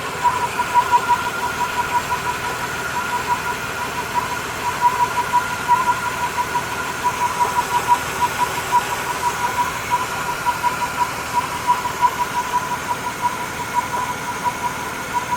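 Holden VY Commodore's 3.8-litre Ecotec V6 running, with a weird humming sound from the engine: a steady high hum that pulses quickly and evenly over the engine noise.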